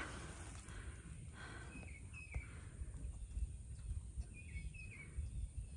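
Quiet outdoor ambience: several short, faint bird chirps, each dipping slightly in pitch, scattered over a low rumble.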